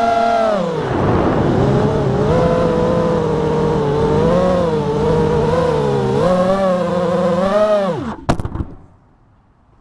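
FPV quadcopter's brushless motors and propellers whining, the pitch rising and falling with the throttle. About eight seconds in the whine winds down and stops, with a sharp click as it stops.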